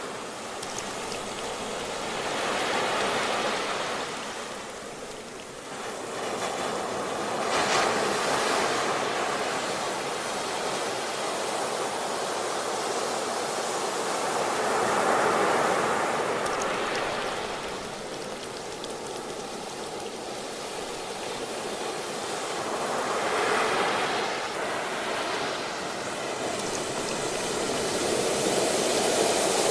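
Ocean waves breaking and washing on the shore, swelling and ebbing every few seconds.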